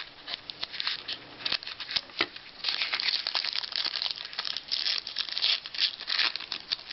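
A trading card pack wrapper being torn open and crinkled in the hands: rapid crackling, sparse at first and dense from about two and a half seconds in.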